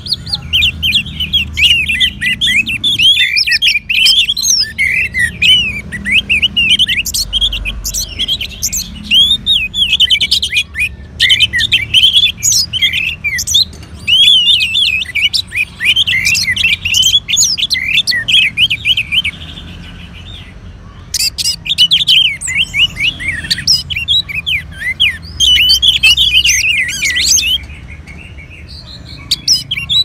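Orange-headed thrush song: a dense stream of quick, varied chirps and twittering whistles, pausing briefly about two-thirds in and again near the end.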